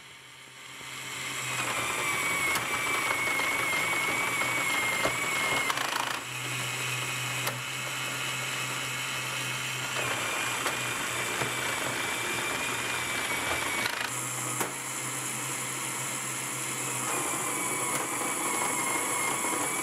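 LEGO Technic mechanism running: an XL motor driving a gearbox of plastic gears and clutches, with a steady whir, a wavering high whine and occasional clicks. The whir fades in over the first second or two. The tone shifts at several points as the gearbox moves between its phases.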